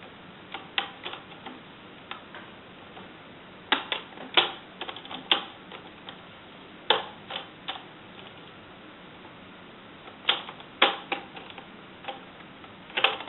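Plastic screen bezel of a Dell XPS 17 laptop being pressed back onto the lid, its clips snapping into place: sharp clicks in small clusters every few seconds.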